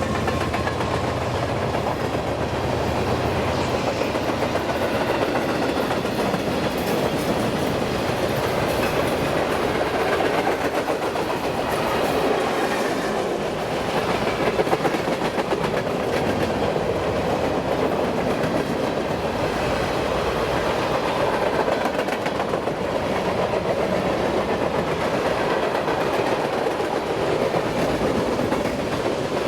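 Freight train's cars rolling past on the rails: a steady wheel-on-rail noise with clickety-clack over the rail joints. A low locomotive engine hum fades out over the first few seconds.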